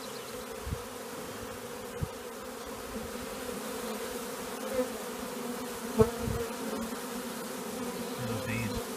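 A large swarm of honeybees buzzing steadily on and around a swarm box as they march into it. There are a few soft bumps, the loudest about six seconds in.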